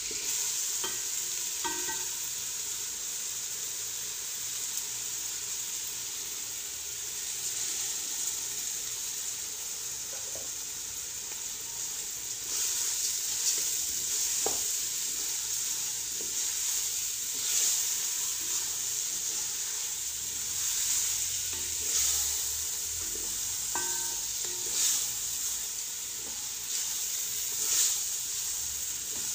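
Chicken, onion and spices sizzling in oil in a granite-coated pot while being stirred with a wooden spoon. From about halfway, raw rice is stirred in and fried in the oil, with louder spoon scrapes against the pot every few seconds.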